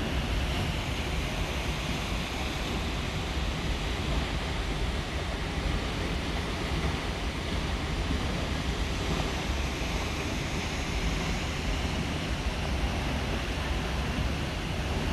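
Waterfall: a steady, unbroken rush of falling water, heaviest in the low rumble.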